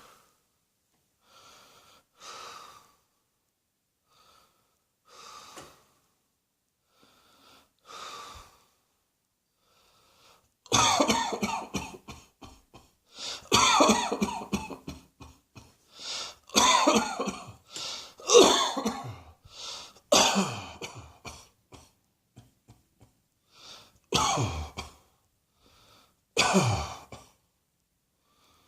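A person coughing: a few soft coughs or breaths at first, then from about ten seconds in a run of loud coughs in repeated fits.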